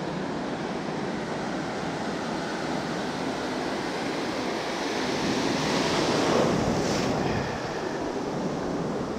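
Ocean surf washing onto the beach, with wind buffeting the microphone; a wave swells and breaks, loudest about six seconds in.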